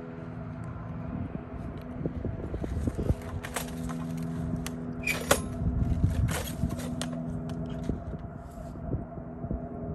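A low, steady engine drone made of several held tones that fade briefly about two seconds in and then return, with irregular knocks and scrapes over it.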